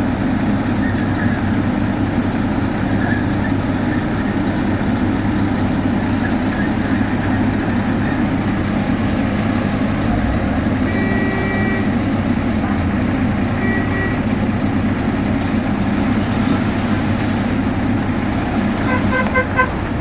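Heavy diesel road-construction machinery, such as a tracked asphalt paver, running steadily. A short horn toot sounds about halfway through and a brief one a few seconds later. A quick series of beeps comes near the end.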